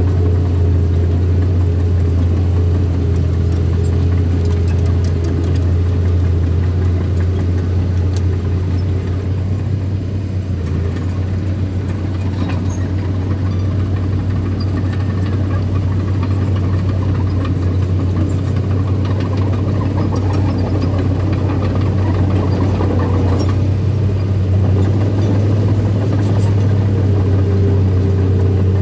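Diesel engine of earthmoving machinery running steadily with a deep drone, easing a little about ten seconds in and then picking back up.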